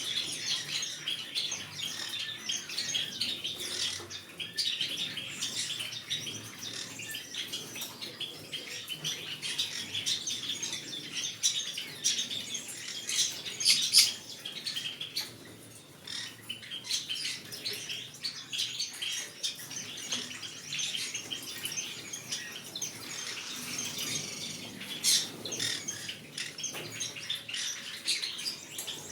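Green-cheeked conure chirping and squawking in a continuous stream of short, high calls, with one louder squawk about halfway through.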